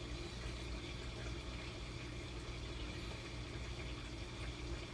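Aquarium filter running: a steady low hum over a constant soft rush of moving water.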